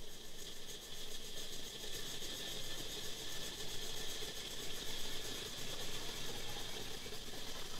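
Steady, high-pitched chorus of insects trilling, with a fainter low steady hum underneath.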